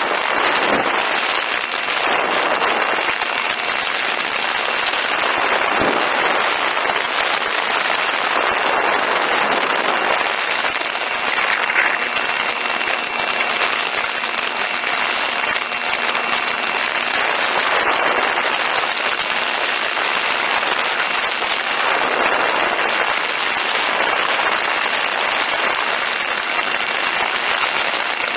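Steady wind rush on the onboard camera's microphone, with the thin, constant whine of the Ranger 2000 FPV plane's electric motor and propeller in flight.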